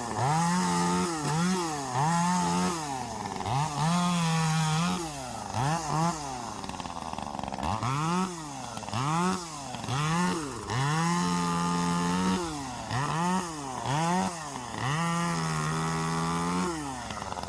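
Small one-handed chainsaw running in short bursts: its engine revs up, holds a steady high pitch for a second or so while cutting, then drops back to idle, over and over, about a dozen times, as apple tree branches are cut.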